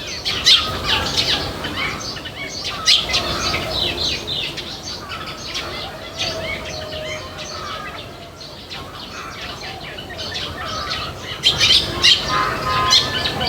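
Several small birds chirping, with many short, sharp calls overlapping and a few squawks. A few steady whistled notes join in near the end.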